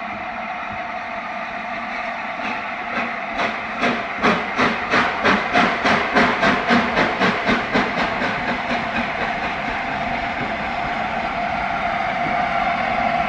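Three-cylinder A4 Pacific steam locomotive 60007 Sir Nigel Gresley approaching under a steady hiss of steam. A run of even exhaust beats, about three a second, swells and then fades over several seconds in the middle, and the hiss grows louder near the end.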